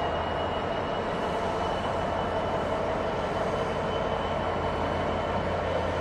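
Diesel locomotive running as it approaches along the line, its engine a steady low drone, with a thin high whine above it.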